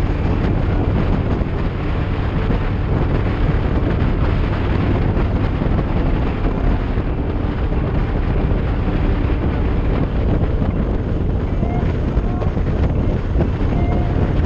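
Steady wind rushing over the microphone, over the low drone of a motorcycle engine and tyres cruising at road speed.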